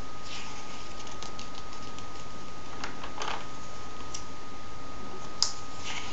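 Paper rustling and light taps as a hand handles and turns a page of a comic book, the biggest rustle about three seconds in and a sharp tap near the end. A steady hiss and a thin steady tone run underneath.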